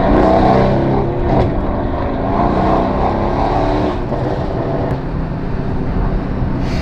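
Mercedes-AMG C63 S twin-turbo V8 with catless downpipes and a Remus cat-back exhaust, running loud in Sport Plus mode. Its pitch rises and falls a little.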